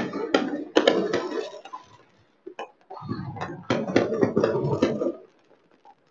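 Fireworks exploding and crackling: a few sharp bangs in quick succession at the start, then a dense run of bangs and crackles from about three seconds in to about five.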